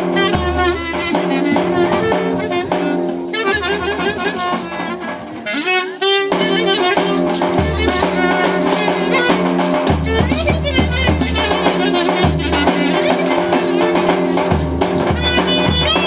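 Live Thracian folk dance music: a clarinet plays a fast, ornamented melody over steady beats on a davul bass drum and a hand drum. There is a brief lull just before six seconds in, then the band carries on.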